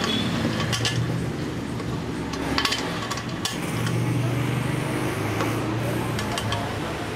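Scattered metal clinks and knocks as the pan of an overlock sewing machine is fitted to its upturned table, over a steady low hum.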